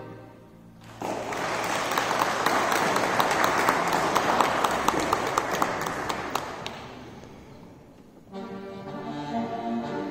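Audience clapping after a song, breaking out about a second in, then thinning and dying away; near the end a folk band starts the next tune.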